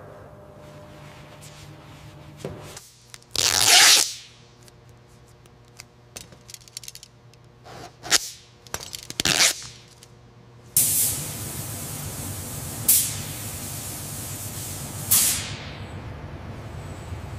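Short bursts of pressurised spray hissing, the loudest about three and a half seconds in, then a steady spray hiss from about eleven seconds on with a few sharper puffs. A faint low hum lies under the first few seconds.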